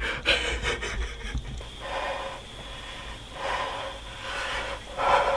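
A hunter breathing hard in several long, rough breaths, worked up right after shooting a buck.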